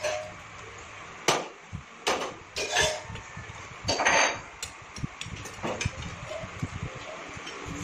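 Forks and a spoon clicking and scraping against plates in a few sharp strikes, with a longer scrape about four seconds in, alongside close-up chewing.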